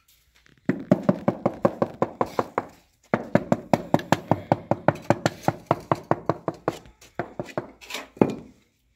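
Rapid knocking of a wooden tool handle on ceramic wall tiles, tapping them into the wet cement mortar to bed and level them. About six hollow, ringing knocks a second in two long runs, with a short break about three seconds in, then a few slower knocks near the end.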